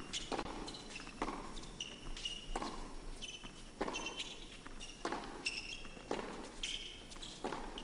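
Tennis rally on an indoor court: racquets striking the ball about once every second and a bit, around seven shots in all, with short shoe squeaks on the court between the shots.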